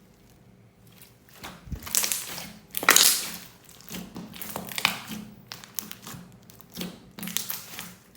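Thin plastic piping bags being squeezed and crinkled, a run of irregular crackling bursts starting about a second and a half in.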